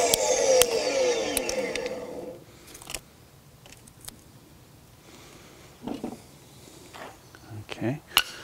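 Portable table saw's motor and blade coasting down after a cut: a falling whine that fades out about two seconds in. Then a few light knocks and clicks as the cut plastic case of a lithium iron phosphate battery cell is handled and pried apart.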